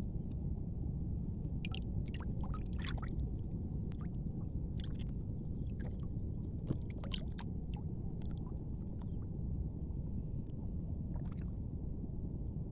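Shallow water splashing and sloshing in scattered short clusters over a steady low rush.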